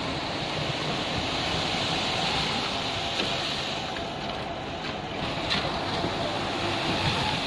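Steady rushing noise of a truck-mounted concrete pump running as wet concrete is pumped onto the roof, with a few light knocks of hand tools in the second half.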